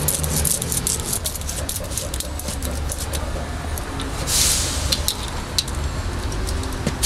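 Quick scraping clicks of a knife shaving strips off a block of dough into a pot of boiling water for Shanxi knife-cut noodles, coming thickly at first and then thinning out, over a low steady rumble; a short hiss about four and a half seconds in.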